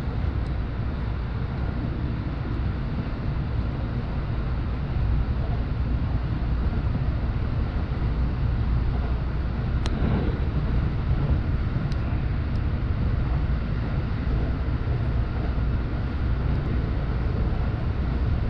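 Cabin noise of a JR Joban Line commuter train running along the line: a steady low rumble with a few short sharp clicks, about ten and twelve seconds in.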